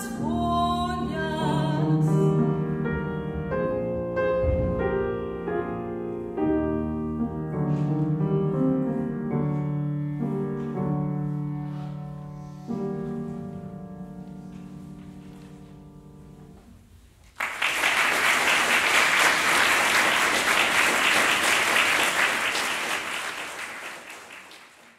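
A mezzo-soprano ends her final held note over grand piano, and the piano plays on alone in a closing passage that fades away. About two-thirds of the way in, audience applause breaks out suddenly and dies away near the end.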